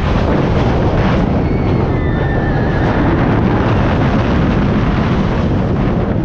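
Mind Bender steel roller coaster train running fast along its track, heard as loud, steady wind rush on the microphone over the train's rolling noise.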